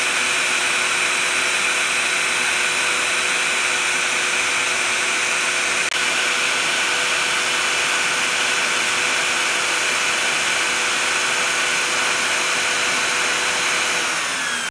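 CNC PCB milling router running steadily: the high-speed spindle's whine sits over the rushing hiss of the debris vacuum as the cutter clears copper from the board. After a brief break about six seconds in, it goes on drilling holes.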